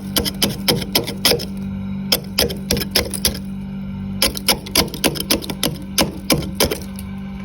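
Frost being scraped off the inside of a freezer in quick runs of crunchy strokes, several a second, with short pauses between runs. A steady low hum runs underneath.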